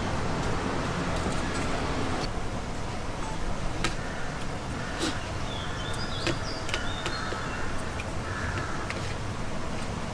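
Steady street traffic noise, with a few sharp clicks and short high chirps scattered through it.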